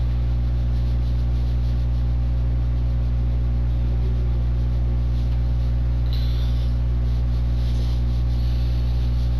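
Steady low electrical hum with a faint hiss over it, the room tone of an interview-room recording, with a faint short rustle about six seconds in.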